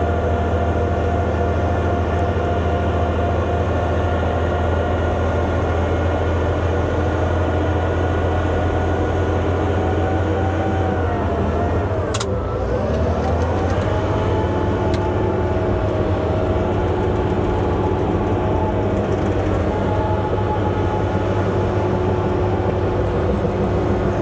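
Bulldozer's diesel engine running steadily with a deep hum; about halfway through its pitch dips briefly under load and comes back up, with a sharp click at that moment.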